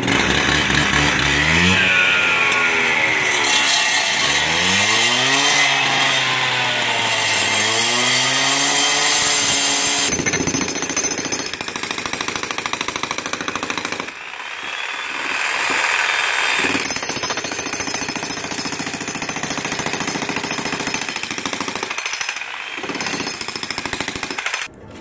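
A gas-powered cut-off saw cutting into a brick paver pool deck, its engine rising and falling in pitch. About ten seconds in, a Bosch Brute electric breaker hammer takes over, pounding steadily at the deck with a couple of brief pauses.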